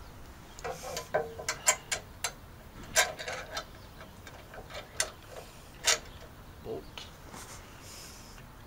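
Irregular sharp metallic clicks and clinks of small mounting hardware and light-bracket parts being handled: several in quick succession in the first couple of seconds, then single clicks every second or so.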